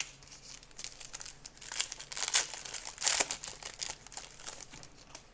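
Crinkling of a foil trading-card pack wrapper being torn open and handled, in irregular crackles that are loudest about two and three seconds in.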